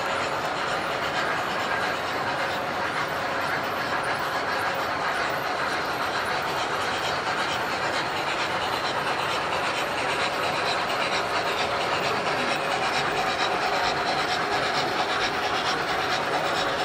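Several model trains running at once on metal track: a steady rumble and rattle of wheels and motors.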